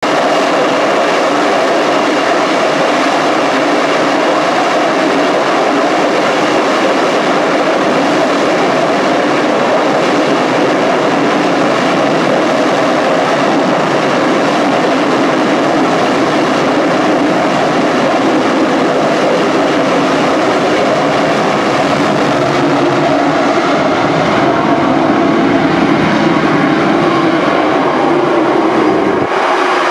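Loud, steady jet engine noise from an F/A-18's twin engines running at full power on an aircraft carrier's catapult, through to its catapult launch.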